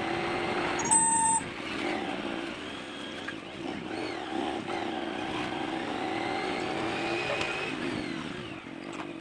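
Motorcycle engine running steadily while riding at low speed, with a short horn beep about a second in.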